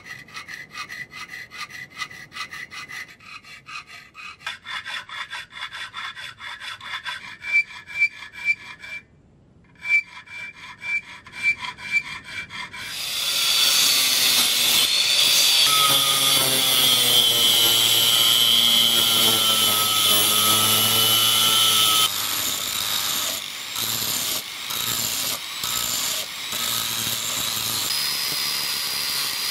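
A hand file rasping in steady back-and-forth strokes on a steel knife blade clamped in a vise, with a short pause about nine seconds in. About thirteen seconds in, an angle grinder starts and runs with a loud, steady whine. About 22 s in its level drops, and it dips repeatedly as it grinds the blade.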